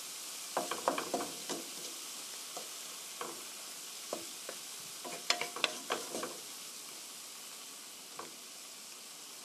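Tomatoes, onion and sliced cheese sizzling gently in a frying pan on residual heat, with the gas just turned off. A wooden spoon scrapes and taps the pan in two short spells of stirring, one about half a second in and another around five seconds in, and the sizzle eases a little towards the end.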